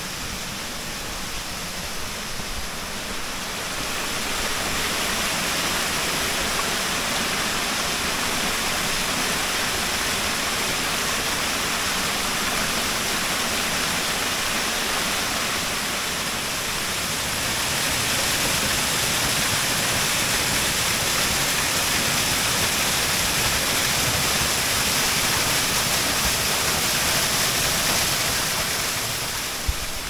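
A narrow waterfall pouring down a rock face into a pool: a steady rush of falling water that grows louder a few seconds in and falls away near the end.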